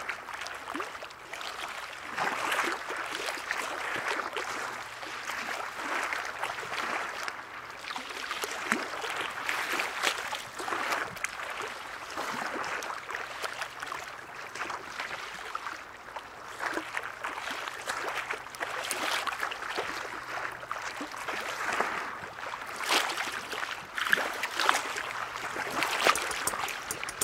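Harbour water lapping and splashing against moored boat hulls and the quay, swelling and falling irregularly.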